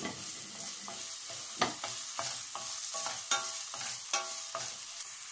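Chopped tomatoes, ginger and green chillies sizzling in hot oil in a stainless steel pan, stirred with a wooden spoon that scrapes and knocks against the pan roughly twice a second. This is the tempering (tadka) for the dal.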